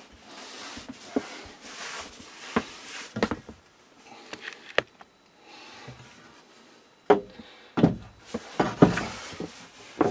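Wooden knocks and clunks of lumber being handled, scattered taps at first, then several louder thumps about seven to nine seconds in.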